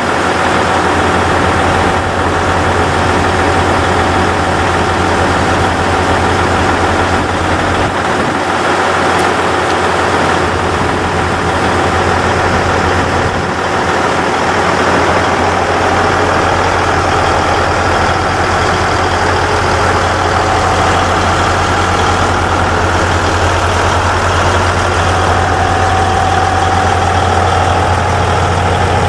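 Diesel engine of a KiYa 95 measuring railcar idling steadily: a continuous low drone with a faint steady whine above it.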